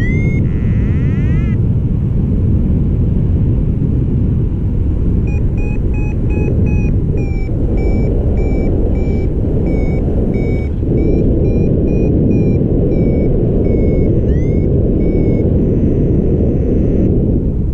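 Wind rushing over the microphone of a paraglider in flight. Through the middle, a flight variometer beeps its climb tone about two to three times a second, the sign of the glider rising in a thermal. Brief rising chirps come near the start and near the end.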